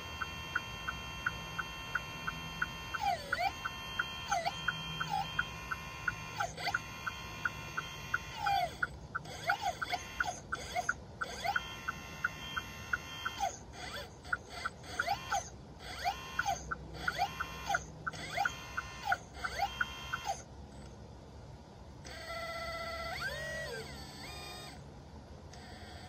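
Outdoor summer ambience: a bird repeats down-slurred whistles about once a second over a steady high insect drone with a fast regular ticking. About twenty seconds in, the ticking and whistles stop and a few other bird calls follow.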